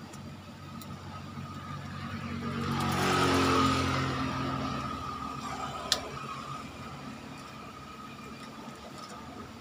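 A motor vehicle passing by: its engine sound swells to a peak a few seconds in, then fades away. A faint steady high tone runs underneath, and there is one sharp click about six seconds in.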